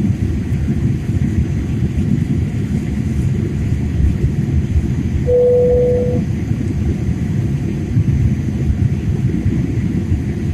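Steady low rumble of a jet airliner cabin in flight, from the engines and airflow. About halfway through, a single cabin chime sounds for about a second, signalling the seat-belt sign ahead of the crew announcement.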